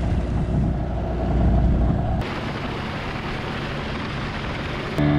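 Small boat's motor running with heavy wind rumble on the microphone. The sound changes abruptly about two seconds in to a flatter hiss, and near the end a steady engine hum with a clear pitch comes in.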